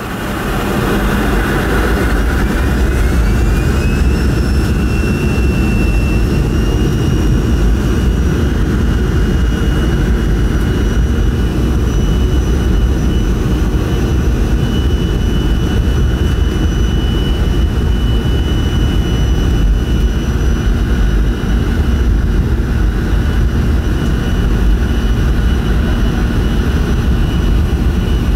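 Jet airliner's engines spooling up to takeoff thrust, heard from inside the cabin: a high whine rises in pitch over the first few seconds, then holds steady over a heavy, continuous rumble.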